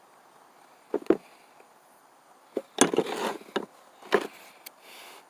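Metal hand tools being handled and set down: a series of separate knocks and clacks, two about a second in, a busier cluster around three seconds, and a few more after.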